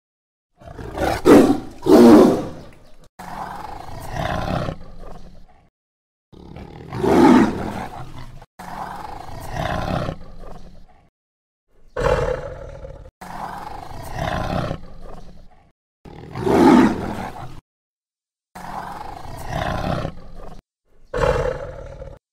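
Tiger roaring repeatedly: about five loud roars a few seconds apart, each followed by a quieter, longer growl, with the sound cutting off suddenly to silence between bouts.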